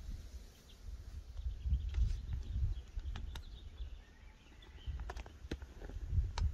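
Gusty wind buffeting the microphone in uneven low rumbling surges as a thunderstorm's shelf cloud moves in. There are a few sharp clicks and faint high chirps.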